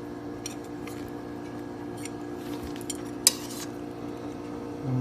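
Kitchen utensils clinking against a pot and bowl: a few light clicks, then one sharper clink about three seconds in, over a steady low hum.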